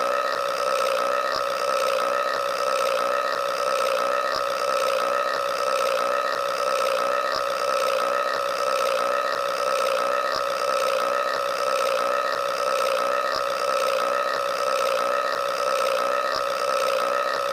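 A cartoon burp drawn out into one long, unbroken belch at a steady pitch and level, with a faint pulse repeating about every second and a half, as if the burp were looped.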